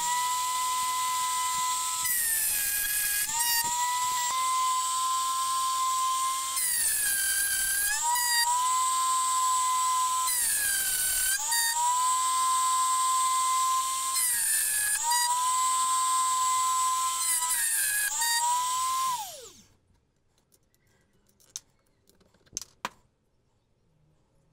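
Rotary tool's high-speed motor whining as its bit cuts notches into the rim of a teak wheel. The pitch sags each time the bit bites into the wood. About nineteen seconds in it is switched off and winds down, followed by a few faint clicks.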